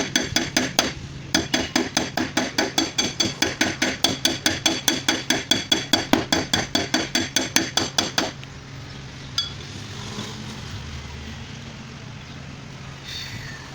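Rapid hammer blows on a car's sheet-metal boot lid, about five a second with a ringing metallic clang, as the dents are beaten out. The hammering pauses briefly about a second in and stops a little after halfway, leaving a low steady hum.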